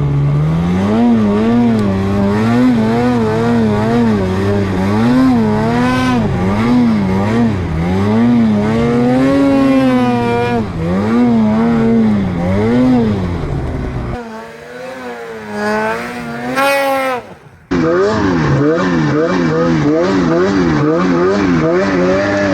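Snowmobile engine revving up and down over and over as the sled is ridden. The sound drops quieter for a few seconds about fourteen seconds in, then comes back at full level.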